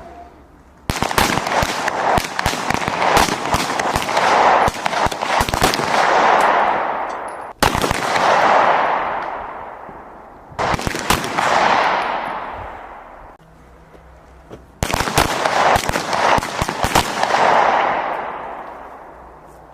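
Small-arms fire on a firing range: many shots overlapping in quick succession with a rolling echo. The fire breaks off and resumes abruptly several times.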